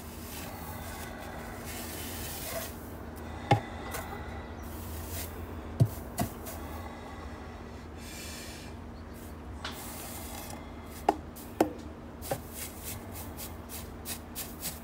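Rustling and rubbing of hands and a fleece sleeve working in the loose bedding of a wooden nest box, with several sharp knocks on the wood along the way. A faint steady hum runs underneath.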